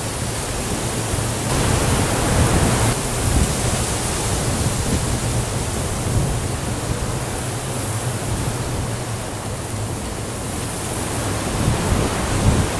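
Wind buffeting the microphone in open country: a steady loud rush with a low rumble, and a few harder gusts thumping near the end.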